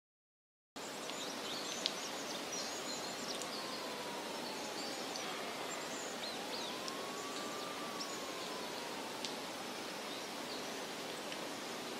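Woodland ambience that starts abruptly after silence: a steady hiss with scattered high bird chirps and a faint tone that slowly glides up and down in the middle.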